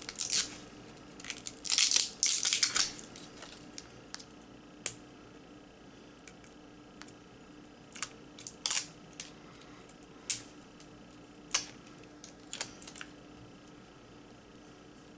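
A plastic mascara tube handled and worked open in the hands: a few rustling, scraping handling noises in the first three seconds, then scattered light clicks and taps.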